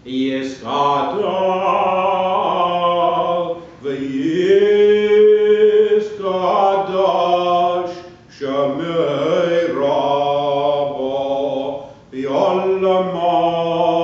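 A cantor's solo male voice chanting synagogue liturgy in drawn-out sung phrases, with short breaks for breath about 4, 8 and 12 seconds in and a long held note about five seconds in.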